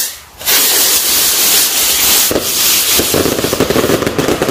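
A bundle of firework rockets going off together, first with a loud rushing hiss as they launch, then, from about two and a half seconds in, a dense, rapid crackle of small bursts.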